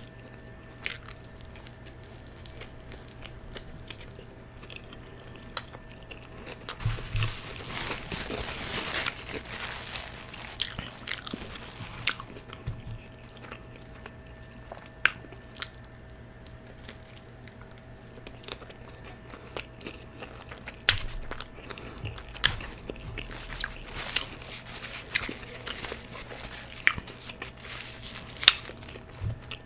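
A person chewing food close to the microphone, with wet mouth smacks scattered throughout. A denser stretch of crunching comes about seven to ten seconds in.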